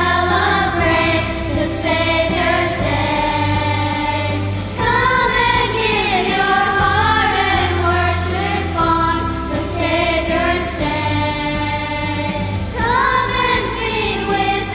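A vocal group singing a church song in harmony, with instrumental accompaniment and held low bass notes underneath.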